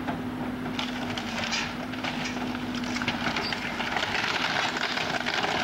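Wood splintering, cracking and crunching as the fire-damaged cabin's structure is torn down, busier in the second half, over a steady low hum.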